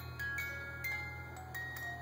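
A music-box-like lullaby of single chiming notes, a few a second, each ringing on as it fades, over a steady low hum.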